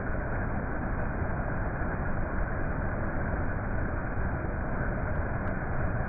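Small mountain stream cascading over mossy rocks: a steady rushing of water with a deep rumble underneath.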